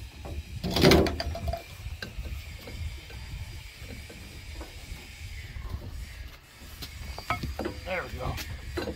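Hands working a drive belt onto a combine's steel pulley: a single loud knock about a second in, then scattered light metal clicks and knocks.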